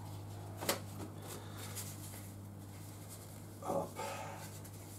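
A few light clicks and taps of small workshop parts being handled, over a steady low hum; one sharper click less than a second in.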